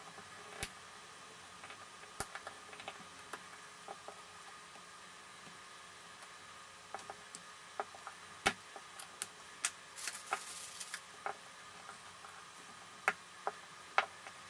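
Plastic pry tool worked around the edge of an HTC One M9's one-piece front cover, making scattered light clicks at irregular intervals as the cover's clips are pushed in and lifted. A short scrape comes about ten seconds in.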